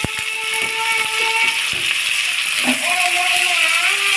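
Sliced onions frying in hot mustard oil in a kadai, a steady sizzle, with a spatula clicking against the pan at the start and near the end. Under it runs a long held pitched tone that drops and changes pitch about two-thirds of the way through.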